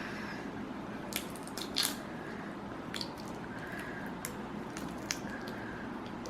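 Wet eating sounds from peeling and biting into a sauce-covered chili prawn, with a few small sharp cracks and clicks from the shell.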